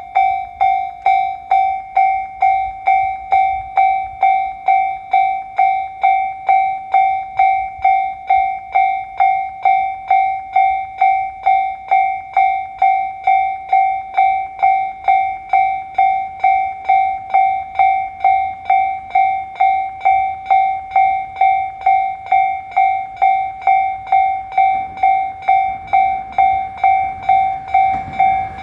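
Japanese level-crossing warning bell ringing, about two electronic strikes a second. Near the end the low rumble of the approaching Tobu 8000 series train rises under it.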